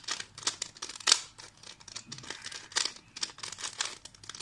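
A 2x2 Rubik's cube being twisted by hand: quick, irregular clicking and scraping of its plastic layers, with one louder clack about a second in.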